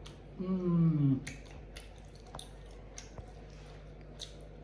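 A short voice-like sound falling in pitch near the start, then eating noises: chopsticks clicking against a glass bowl of noodle soup, with small slurps and chewing.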